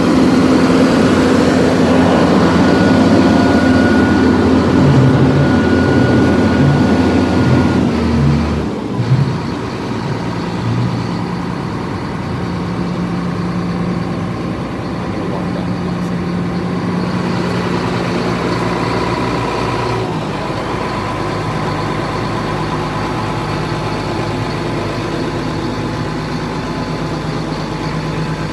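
Peterbilt 330 dump truck's diesel engine running steadily. About eight seconds in, a higher whine and part of the engine note stop and the level drops a little; the engine then carries on at a steady idle.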